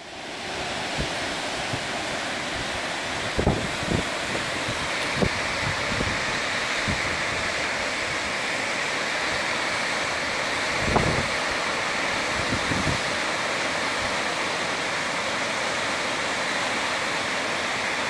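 Steady rush of the Hraunfossar cascades, many small falls spilling from a lava field into the river, with a few low buffets of wind on the microphone.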